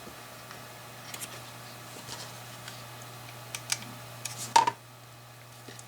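Small clicks and taps from handling an electric precision screwdriver and its bits, with a louder click about four and a half seconds in, over a steady low hum.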